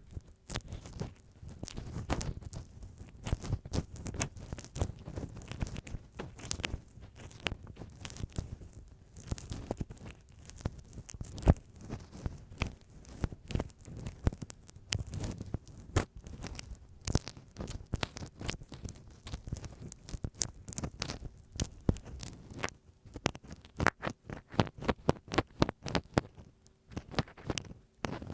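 Ear pick scratching and tapping on masking tape stuck over a microphone, very close: a dense, irregular run of crackly scratches and sharp clicks with soft low thumps.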